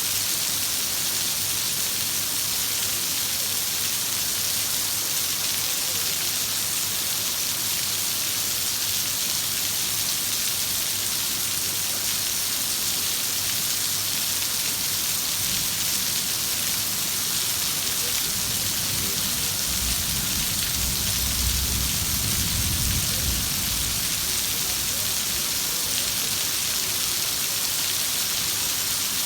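Heavy rain falling in a steady, even hiss. About halfway through, a low rumble of distant thunder swells for several seconds and fades.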